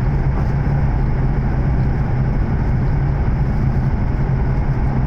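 Running noise of an E7 series Shinkansen train heard inside a passenger car: a steady, even rumble with a constant low hum.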